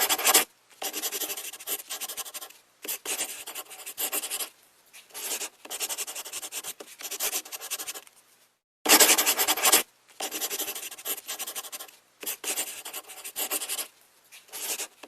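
Rubbing and scraping on an old mobile phone's body during restoration, in repeated bursts of a second or two with short pauses. The sound is a hissy, gritty rasp, loudest about nine seconds in.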